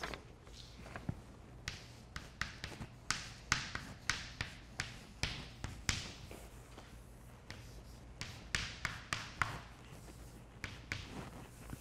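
Chalk writing on a chalkboard: a run of short sharp taps and scratches as figures are written, then a pause of about two seconds, then a second run of strokes.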